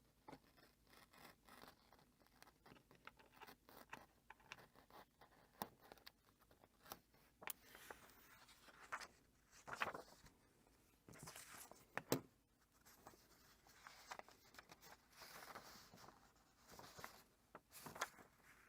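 Faint, irregular small scrapes, rustles and clicks of tape and paper being handled and cut on a book's pages, with one sharper click about twelve seconds in.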